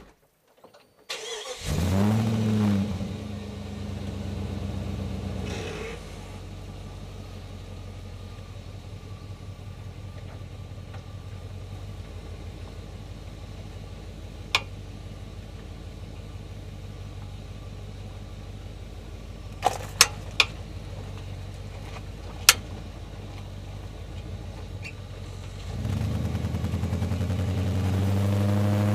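Jeep Grand Cherokee WJ engine cranked by the starter and catching, flaring up briefly, then settling to a steady idle. A few sharp clicks or knocks sound over the idle in the middle, and near the end the engine is revved, its pitch rising.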